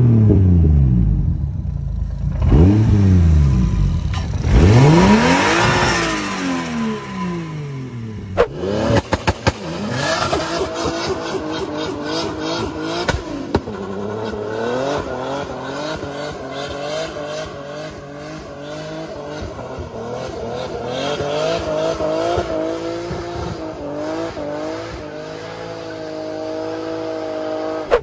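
A Toyota 2JZ straight-six, swapped into a Subaru WRX STI, revving hard in about three rising-and-falling blips. After a few sharp clicks it is held at high revs through a burnout, its steady note wavering over the noise of the spinning tyres.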